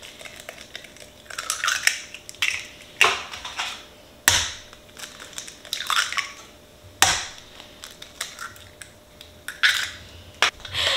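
Eggs being cracked one after another over a glass mixing bowl: a series of sharp shell cracks, about one every second or so, with the crunch of shells being pulled apart.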